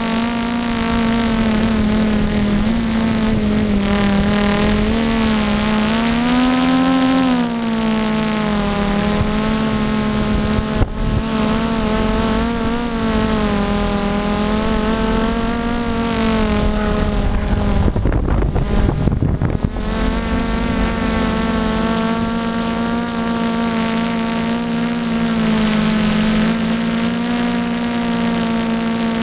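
Y6 tricopter in flight: six 1000 kV brushless motors spinning 9-inch propellers give a steady buzzing drone whose pitch rises and falls a little with throttle, with a thin high whine above it. About two-thirds of the way through, wind buffets the microphone for a couple of seconds.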